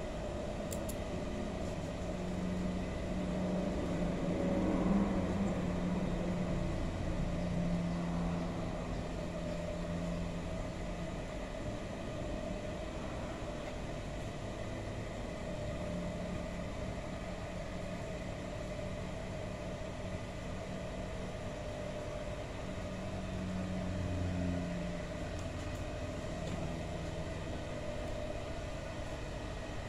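Steady hum of an industrial sewing machine's motor left running while the machine is stopped, with a couple of faint clicks.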